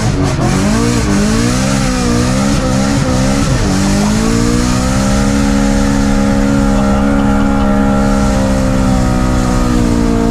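BMW E92 M3's 4.0-litre V8 engine heard from inside the cabin under hard driving: the revs rise and fall through the first few seconds, then hold at a steady high pitch for the rest.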